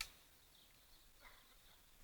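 Near silence: quiet outdoor ambience with a faint short chirp about a second in.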